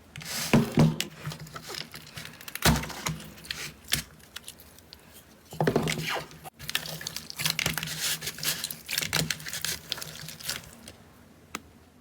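Slime being squeezed and pressed by hand, giving sticky crackles and pops in several bursts with short pauses between them.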